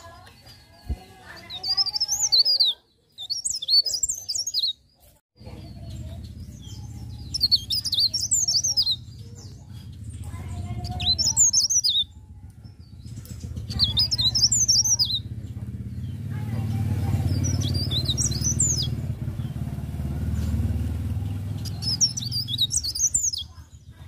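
Caged songbird singing in short bursts of rapid high chirps and trills, a new phrase every two to three seconds. A steady low rumble runs underneath from about five seconds in.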